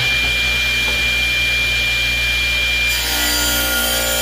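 Shop Fox W1837 10-inch hybrid table saw running at full speed with a steady high whine, freshly spun up. About three seconds in the tone changes as the blade starts cutting into a painted wooden board.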